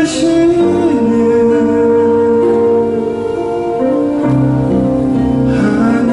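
A man singing a slow gospel song solo into a microphone over instrumental accompaniment, holding long notes that change pitch every second or two.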